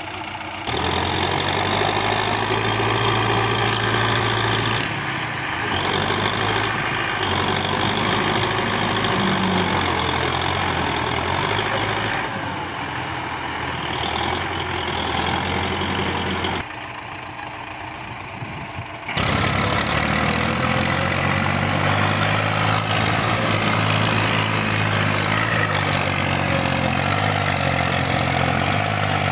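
Diesel farm tractor engines running and labouring as a tractor tries to pull a front-loader tractor out of deep mud. The engine note changes abruptly several times and drops quieter for a couple of seconds a little past the middle.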